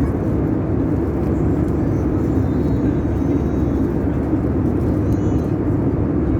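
Steady low rumble of a moving vehicle heard from inside its cabin, even in level throughout.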